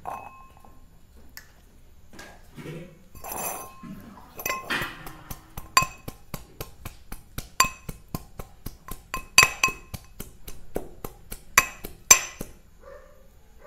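Steel mortar and metal pestle pounding ingredients, metal striking metal with a ringing clink at about four strikes a second. A few scattered clinks come first, and the steady pounding starts about four seconds in and stops a second before the end.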